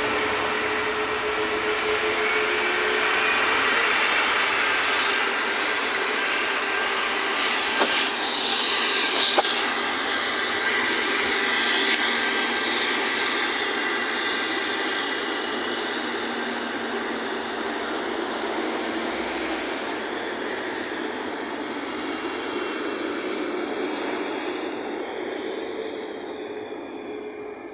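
Jet engines of a Boeing 737 on the ground at taxi power: a steady rushing whine that swells as the airliner passes close, loudest about eight to ten seconds in, then fades slowly as it moves away.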